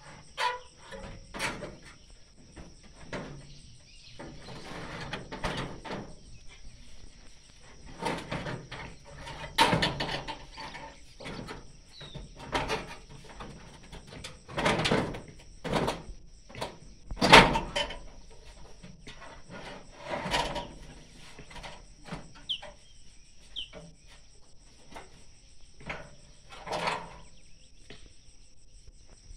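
Gutter work: irregular knocks, bangs and short scrapes as gutter sections and brackets are handled and fixed in place, the loudest bang about two-thirds of the way through.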